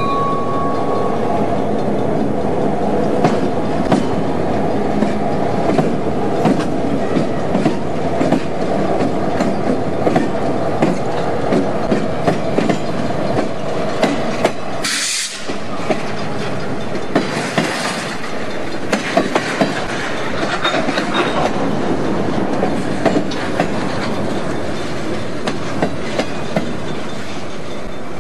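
BNSF diesel locomotives and freight cars passing close by: engines running, steel wheels clicking over the rail joints with some wheel squeal on the curve. A steady high tone stops about a second in, and a short burst of hiss comes about fifteen seconds in.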